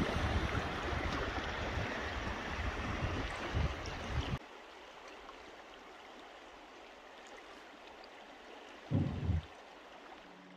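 Flowing river water, a steady rushing hiss with uneven low rumbles, that cuts off abruptly about four seconds in. Fainter steady water noise follows, with one brief low rumble near the end.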